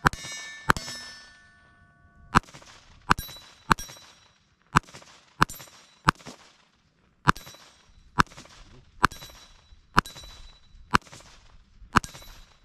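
Keltec CP33 .22 LR pistol firing a steady string of about fourteen shots, roughly one a second. The early hits leave a struck steel target ringing for a second or more.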